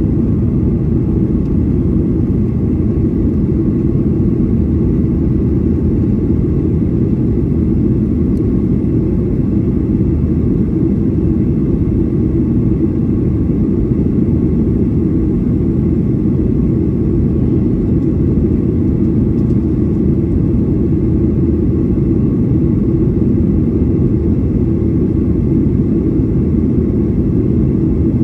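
Cabin noise inside a Boeing 737-800 climbing after takeoff: its CFM56-7B turbofans and the rush of air make a steady, loud, low rumble with a faint hum over it.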